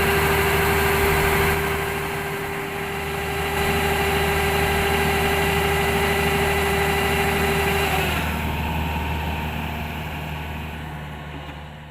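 Kubota combine harvester's diesel engine running steadily, with a steady machine whine over it that stops about eight seconds in; the engine sound then fades away near the end.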